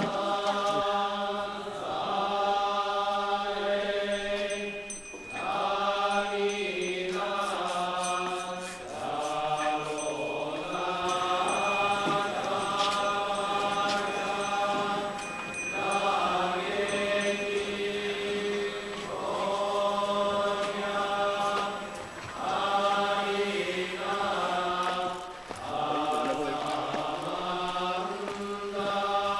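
Buddhist chanting: voices in unison singing long, held phrases with short breaks between them, over a steady low drone.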